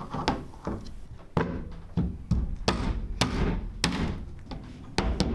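About a dozen sharp knocks and clinks, irregular at roughly two a second, of small metal hardware set onto the bolts sticking up from the camper's roof: stainless washers going onto the roof-rack bolts.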